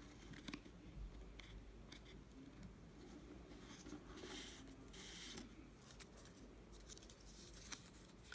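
Faint rustling and scraping of stiff paper and card as hands handle a paper gift bag's flap and then a small paper envelope, with a few light clicks.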